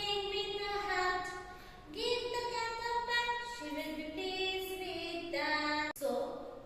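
A high voice singing a song without accompaniment, holding notes that step up and down in pitch, with a brief break near the end.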